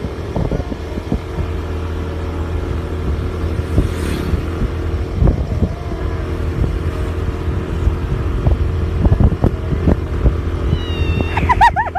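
Motorcycle or scooter engine running steadily while riding, with wind buffeting the microphone in irregular low thumps. Near the end come a few short, high, wavering cries.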